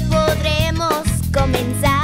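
Pop song: a voice singing a melody over a steady beat and bass line, with a brief gap in the singing about a second in.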